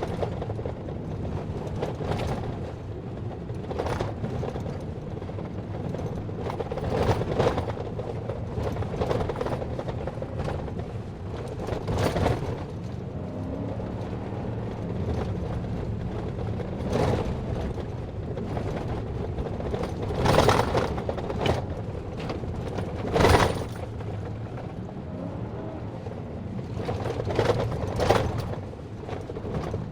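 A vehicle's engine running steadily while driving, its pitch shifting a few times, with repeated knocks and rattles; the loudest bangs come about two-thirds of the way through.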